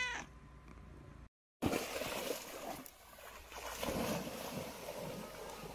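A cat's meow cuts off at the very start. Then, after a short break, comes water splashing as a dog bounds through a shallow river, in uneven surges, with wind rumbling on the microphone.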